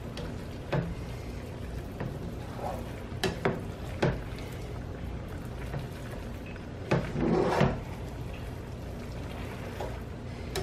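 A utensil knocking and scraping in a pan while pasta with chicken and broccoli is mixed, a few scattered clanks with a longer bout of stirring near the middle, over a low steady hum.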